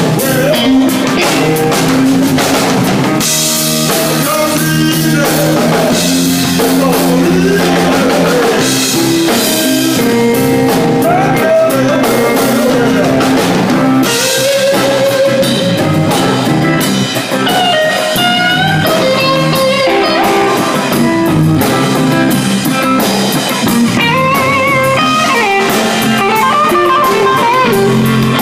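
Electric blues band playing live: electric guitars over a drum kit, with a bending lead guitar line that grows more prominent in the second half.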